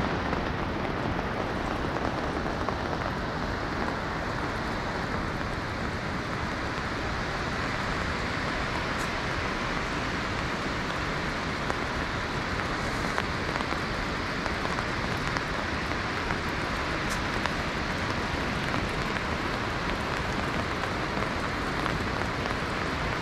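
Steady rush of falling water in wet weather, rain and the many runoff waterfalls on the mountainsides, heard as an even hiss.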